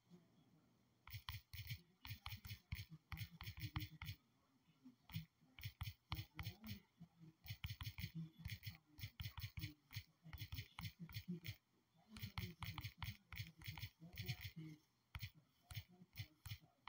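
Fingertips tapping on a phone's touchscreen keyboard while typing: quick, irregular runs of soft taps, broken by short pauses.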